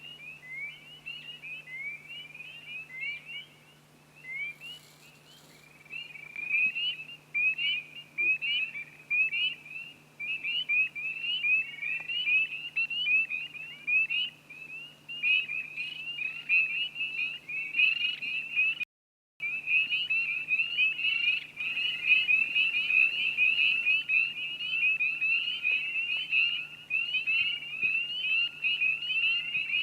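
A dense chorus of frogs calling, many short rising peeps overlapping without pause, over a faint steady low hum. The sound cuts out completely for about half a second a little under two-thirds of the way through.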